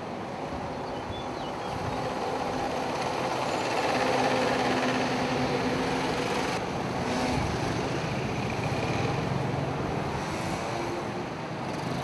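Slow-moving road traffic: car and motorcycle engines running together as a steady hum that grows a little louder about four seconds in.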